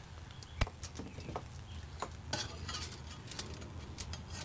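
Metal spatula scraping and clicking against a wire grill grate as grilled chicken thighs are lifted off: a scattered series of light sharp clicks, the loudest about half a second in.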